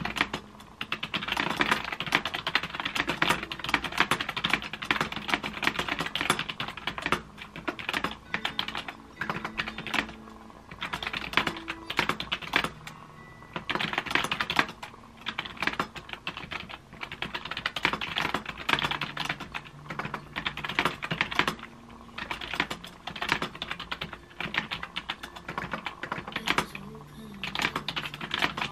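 Typing on a MacBook Air laptop keyboard: quick runs of key clicks broken by short pauses, with piano music in the background.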